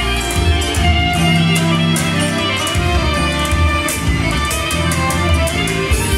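Live Balkan folk dance band playing: a clarinet leading over electric guitar, drum kit and keyboard, with a strong bass line and steady drum beats.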